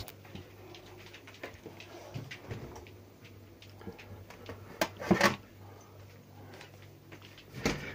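Refrigerator being opened and its shelves and drawers handled: scattered clicks and knocks, with a short clattering rattle about five seconds in and another sharp knock near the end.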